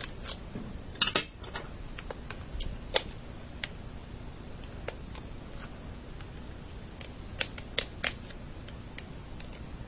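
Irregular small clicks and taps of a tri-wing screwdriver and tiny screws against a GameCube controller's plastic shell as the screws are backed out, with a cluster about a second in and a few louder clicks near the end.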